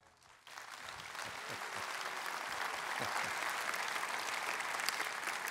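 Church congregation applauding, coming up about half a second in and then holding steady as a dense patter of many hands clapping.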